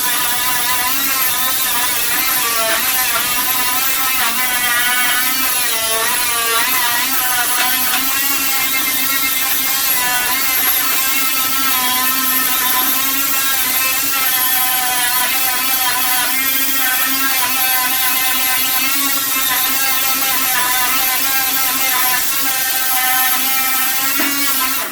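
Power tool with a paint-stripping drum running continuously against bodywork, its whine wavering up and down in pitch as the load changes. It stops abruptly at the very end.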